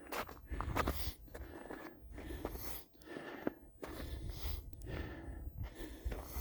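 Footsteps crunching through snow, an irregular series of short crunches.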